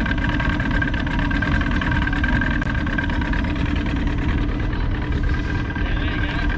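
Johnson 90 hp two-stroke outboard idling steadily, running again on a newly replaced power pack.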